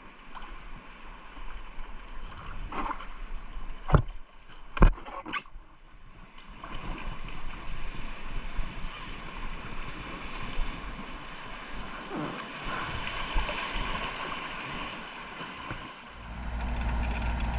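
Rushing river water and paddle strokes around a small inflatable packraft, with two sharp knocks about four and five seconds in. Near the end a steady low rumble sets in.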